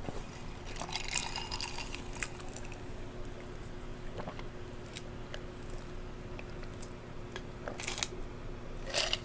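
Close-miked wet mouth sounds of eating: scattered smacks and small clicks, with a louder wet smack near the end.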